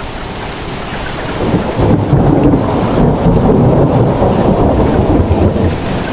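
Loud rush of floodwater surging down a narrow street, a dense steady roar that swells about a second and a half in.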